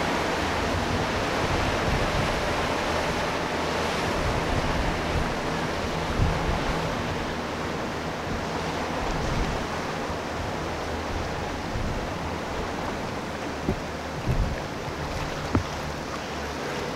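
Steady rush of wind and churning water from waves and a boat's wake. Underneath runs a low, steady drone from a patrol boat's four outboard motors as it passes at speed.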